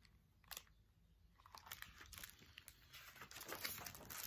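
Faint paper rustling and crinkling as a hardcover picture book is handled and a page turned: one soft tap about half a second in, then rustling that builds toward the end.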